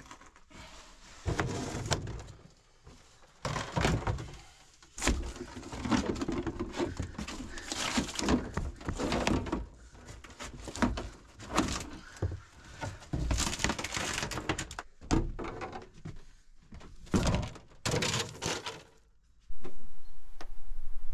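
Irregular knocks, thuds and scraping from hands and tools working on panels in a small, cramped bathroom, coming in bursts with short pauses.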